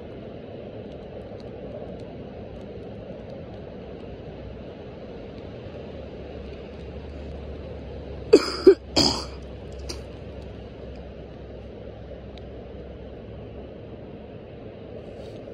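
A person coughing and clearing their throat three times in quick succession about eight seconds in, over a steady background hiss and rumble.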